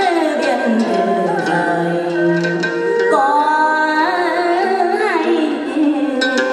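A woman sings a Vietnamese hát văn folk song in a bright voice with sliding, ornamented pitches. A traditional Vietnamese ensemble accompanies her with sustained instrument tones and light percussion strokes.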